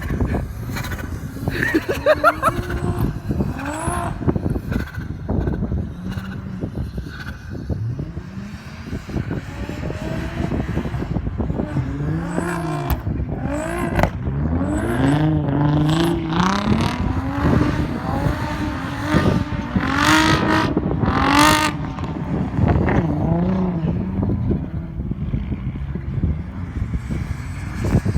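An Audi's engine, working in deep snow, revs up and down over and over as the car slides around. The revs climb highest about twenty seconds in.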